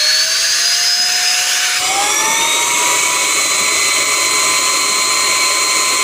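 Bolde Smart Hoover Aquaman wet-dry floor cleaner's motor running with a loud whine that rises as it spins up, then steps up to a higher, steady pitch about two seconds in, over a constant rushing of air.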